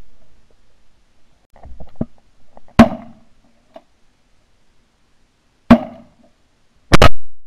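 Three very loud 12-gauge shotgun blasts, heard from a camera mounted on the barrel: one about three seconds in, then two more near the end, about a second and a half apart.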